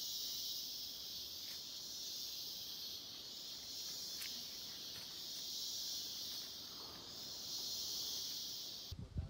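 Loud, steady high-pitched buzzing chorus of large forest insects, swelling and fading a few times before cutting off suddenly near the end.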